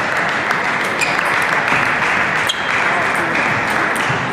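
Steady din of a busy table tennis hall: a dense clatter of balls on bats and tables from many tables at once, mixed with chatter. Scattered sharper ball clicks stand out from it.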